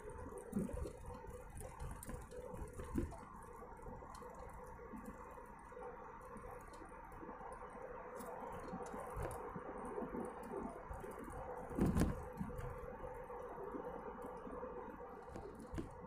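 Car cabin noise while driving: a steady drone of engine and road noise with a steady hum, and scattered light clicks and knocks, the loudest a thump about twelve seconds in.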